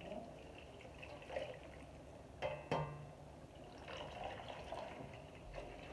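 Liquid pouring and dripping as coconut milk is wrung out of grated coconut soaked in water. Two short knocks come about two and a half seconds in.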